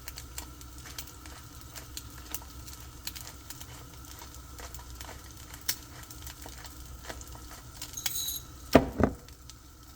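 Egg frying in hot oil in a pan, crackling with many small irregular pops. Near the end there are a brief clink and then a couple of louder knocks, the loudest sounds.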